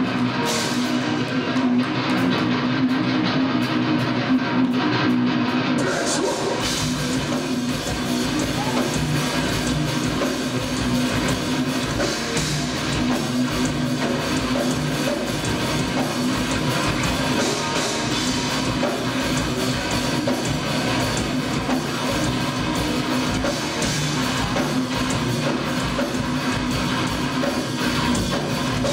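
Nu metal band playing live: electric guitars, bass and drum kit in an instrumental stretch with no vocals. The sound grows brighter in the treble about six seconds in and stays dense and loud after that.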